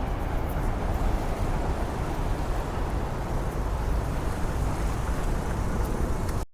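Sea surf washing onto a beach with wind blowing on the microphone, a steady noise heavy in the low end.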